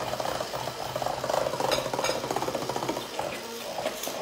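Stick hand blender running in a glass bowl of cupcake batter, its motor running steadily while the blade churns the thick mix.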